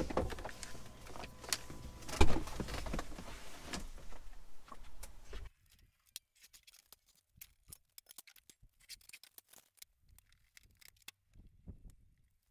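Rustling and clatter of someone moving about inside a pickup cab, with one sharp loud click about two seconds in. After a sudden drop, faint scattered clicks and knocks of metal patio heaters being unloaded from a truck bed.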